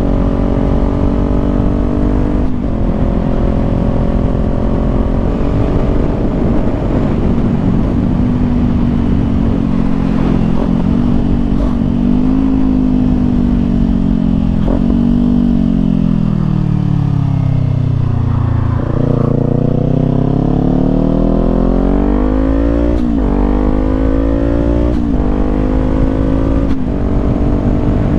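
Parallel-twin sport motorcycle engine under way. It shifts up a few times early on, slows with revs falling for a few seconds around the middle, then accelerates again with rising revs and an upshift every couple of seconds near the end.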